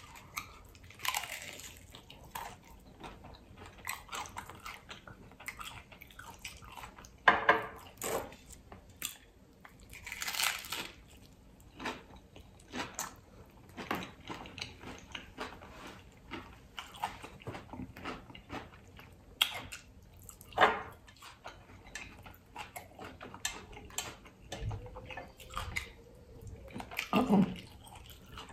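A person biting and chewing crunchy hard-shell tacos: crackling crunches of the shell mixed with wet chewing, with a few louder bites spaced several seconds apart.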